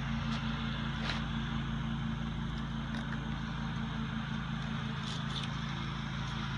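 A steady low mechanical hum throughout, with a few faint scrapes and ticks as a knife cuts through a small sunfish on a plastic cutting board.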